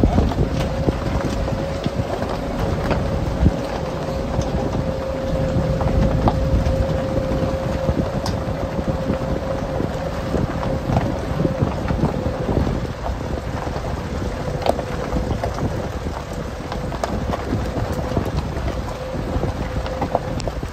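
A vehicle on the move: a steady low rumble with a constant hum held through most of the stretch, scattered rattles and knocks, and wind buffeting the microphone.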